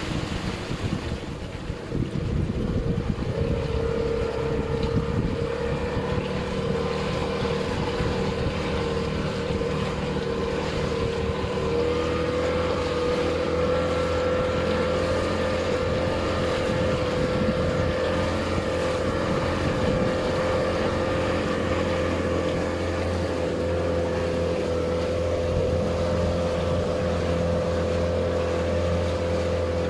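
A motorboat's engine running steadily, its pitch stepping up slightly about a dozen seconds in, with wind noise on the microphone.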